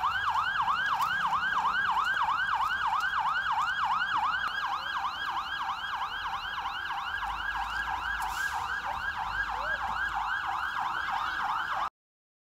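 Emergency vehicle siren in rapid yelp mode, its pitch sweeping up and down about four times a second, steady throughout, then cut off suddenly near the end.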